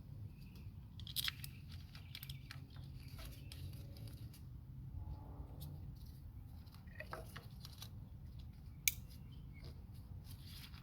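Scattered light clicks and knocks of plastic ignition coils and their connectors being pulled and pushed into place on the engine, the sharpest about a second in and near the end, over a low steady hum.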